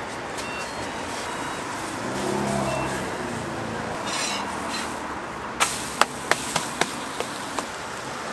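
A quick run of about seven sharp knocks over two seconds, starting a little past halfway, over a steady background hiss, with a brief low hum earlier on.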